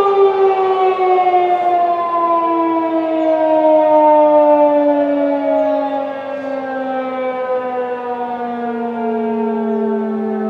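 Federal Signal 2001-DC electromechanical warning siren sounding the attack signal, its loud tone sliding slowly and steadily down in pitch.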